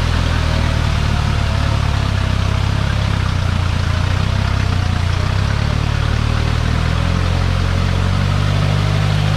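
Off-road 4x4's engine running steadily under load as its wheels spin in deep mud, flinging mud against the body.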